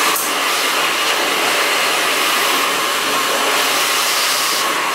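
Handheld hair dryer blowing steadily at close range while hair is heated over a vent brush. The airflow is a loud, even rush, with a faint click just after the start and the hiss thinning slightly near the end.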